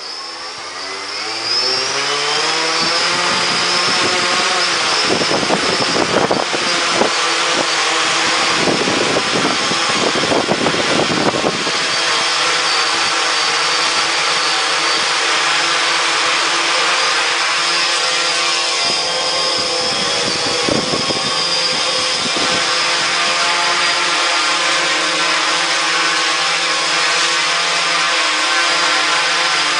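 Ideafly IFLY4 quadcopter's four motors and propellers spinning up in a rising whine over the first two seconds, then holding a steady buzzing hum as it hovers, with small shifts in pitch as the throttle changes. Gusty rushing from the propeller wash comes and goes in the middle stretch.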